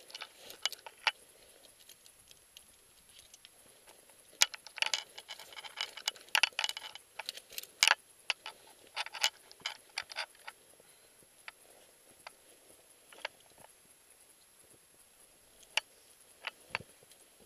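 Metal climbing gear (via ferrata carabiners and harness hardware) clinking and jingling in scattered sharp clicks while scrambling over rock, busiest between about four and eleven seconds in.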